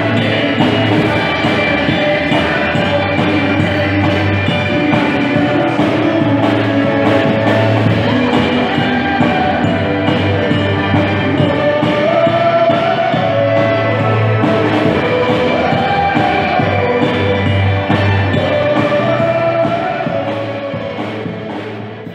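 Live wedding band of drum kit, violin and singers playing a pop ballad, with a steady drum beat; the music fades out near the end.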